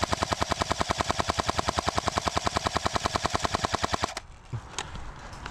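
A&K M249 Para airsoft electric gun firing one long full-auto burst: a rapid, even stream of mechanical clacks that stops abruptly about four seconds in.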